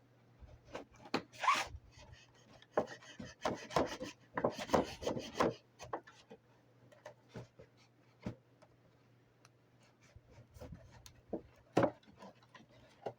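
Action figure box packaging being worked open by hand: cardboard and plastic rubbing and scraping, with scattered clicks, busiest in the first half.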